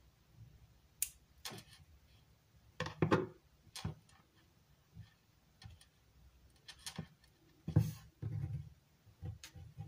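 Scissors and small pieces of play dough handled on a tabletop: scattered light taps and clicks with a few soft thuds, the strongest about three seconds in and again near eight seconds.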